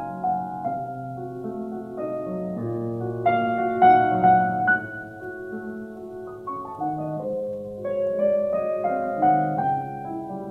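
Background piano music: single notes and chords struck and left to ring.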